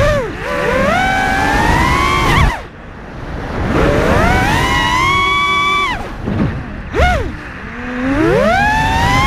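FPV freestyle quadcopter's brushless motors whining, the pitch climbing and sliding with the throttle. The whine falls away sharply about two and a half seconds in and again later, as the throttle is cut for flips and rolls, then rises again, over a low rushing noise.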